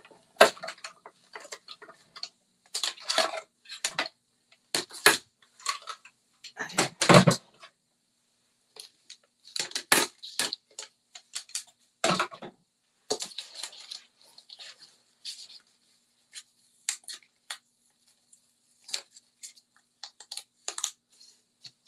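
Hard plastic cutting plates and a metal die clacking and clattering as they are run through and taken out of a hand-cranked Mini Stampin' Cut & Emboss die-cutting machine. The sharp clatters are loudest in the first half and give way to smaller, scattered clicks.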